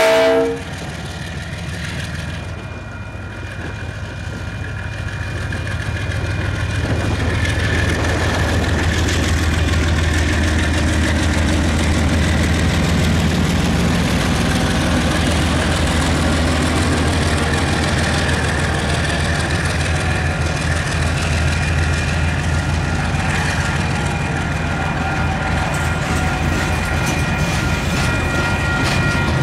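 The last half second of a KiwiRail DXC-class diesel locomotive's horn, then the heavy diesel engines growing louder and rumbling as the locomotives pass close by. After that, freight wagons roll past steadily on the rails.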